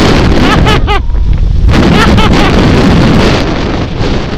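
Heavy wind buffeting the camera's microphone, a loud low rumble that eases a little near the end, with people's voices heard briefly at the start and about two seconds in.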